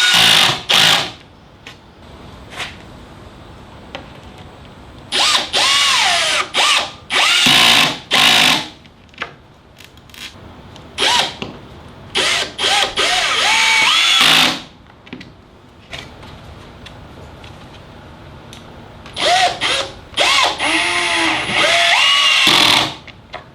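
Cordless drill driving pocket-hole screws into timber in four spells of a few seconds each, the motor's pitch rising and falling as each screw is run in.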